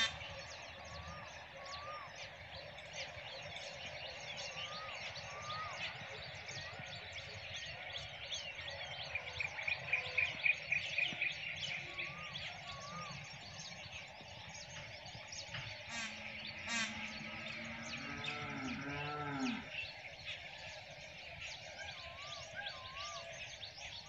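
Several birds chirping and singing together, with many short notes overlapping and a fast trill about ten seconds in. A low, drawn-out call sounds beneath them around sixteen to nineteen seconds in.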